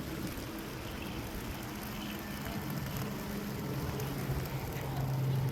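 A vehicle running: steady road noise with a low engine hum that grows louder toward the end, then cuts off abruptly.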